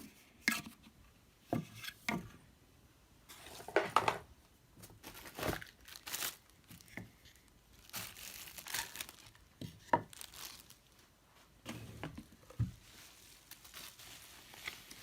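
Packaging crinkling and rustling while a product is unboxed, with scattered short clicks and knocks of handling.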